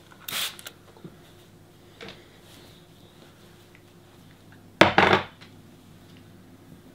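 Trigger spray bottle spritzing the hair: short hissing sprays near the start and a fainter one about two seconds in. About five seconds in comes a louder half-second handling noise.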